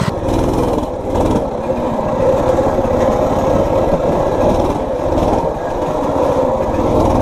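Baja Warrior 200cc mini bike's single-cylinder four-stroke engine running steadily while the bike is ridden along.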